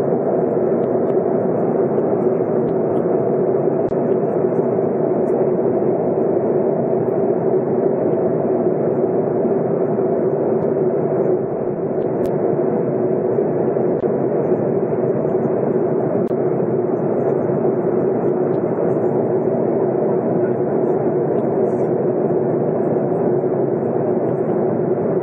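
Steady airliner cabin noise in flight: the constant hum of the jet engines and air rushing past the fuselage, dipping briefly about halfway through.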